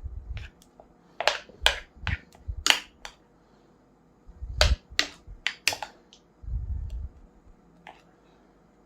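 A series of about a dozen sharp, irregular clicks and cracks, with a few dull low thumps in between.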